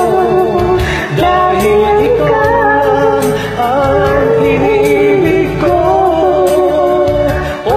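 Karaoke ballad backing track with a man and a woman singing a duet over it, their voices gliding and bending through the melody.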